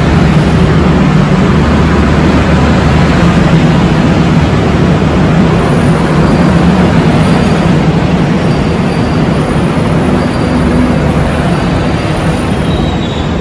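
Passenger train running: a loud, steady rumble with a low hum underneath, easing off slightly near the end.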